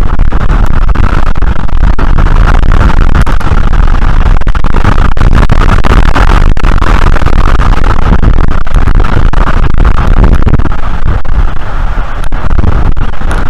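Strong wind buffeting the nest camera's microphone: a loud, steady rush of noise with a heavy low rumble.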